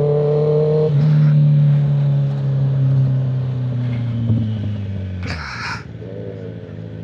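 Sport bike's inline-four engine running at a steady speed, then falling slowly in pitch over several seconds as it slows. A short burst of hiss about five seconds in.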